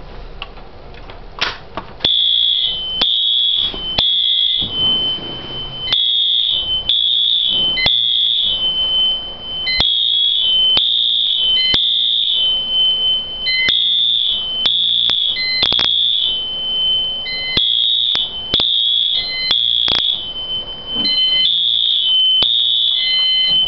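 Fire alarm horn sounding the temporal code-3 evacuation pattern, set off by a pulled Simplex pull station: three high pulses, a pause, and again, starting about two seconds in after a sharp click. A steady high tone runs beneath the pulses, and sharp clicks come about once a second.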